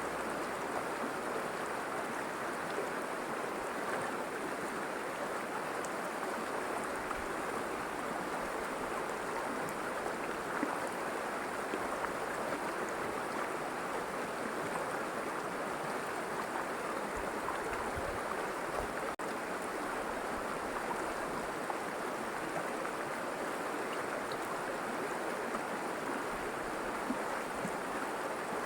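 River water flowing and babbling steadily.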